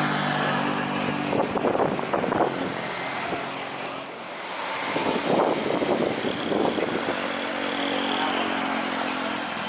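Motor vehicle engines running and passing. A steady engine hum is heard at the start and again near the end, with louder noisy swells in between.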